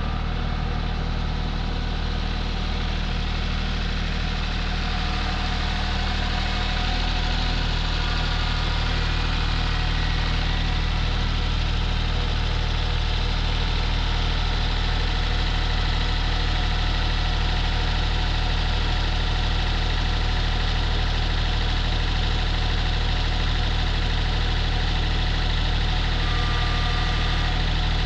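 Gasoline engine of a Woodland Mills HM122 portable sawmill running steadily.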